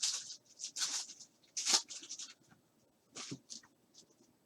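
Trading-card packaging being torn open: crinkling, tearing wrapper in several short bursts, the loudest about two seconds in.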